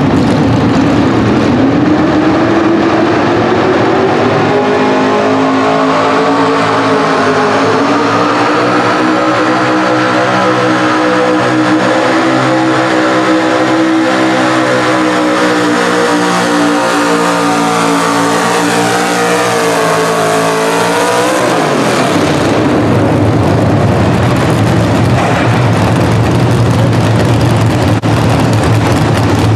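Chevrolet S-10 Pro Stock Mini pulling truck's engine at full throttle dragging the weight-transfer sled. The revs climb over the first few seconds, hold, then sag as the sled bears down. About two-thirds of the way through the revs fall away sharply as the pull ends, and the engine settles to a lower, steady idle.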